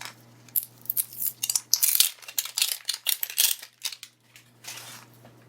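Hands handling and picking at a small cardboard box, a quick run of sharp scratchy clicks and rustles, then a short papery hiss near the end.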